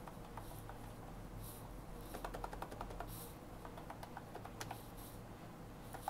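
Typing on a Mofii wireless keyboard with round, typewriter-style keycaps: quick runs of light key clicks, busiest about two to three seconds in.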